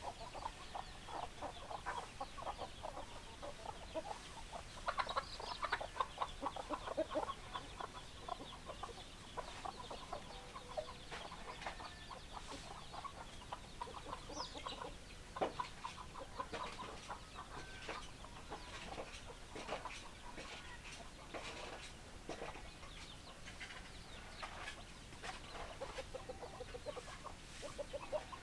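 A flock of hens clucking: many short clucks overlapping the whole time, busiest and loudest about five to seven seconds in.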